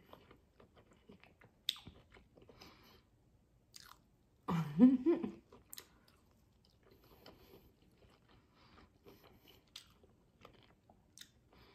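Chewing and biting into fried, battered lobster tail meat, with a few crisp crunches and soft mouth clicks. A short voiced hum about halfway through is the loudest sound.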